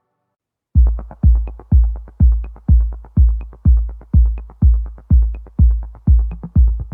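Background electronic dance music: after a brief silence, a steady drum-machine kick beat comes in about three-quarters of a second in, about two beats a second, with lighter ticks between the kicks.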